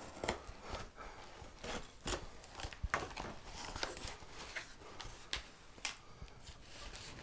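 A knife slitting the packing tape on a cardboard box, then the cardboard flaps being pulled open, with scratchy rasps, rubs and small clicks throughout.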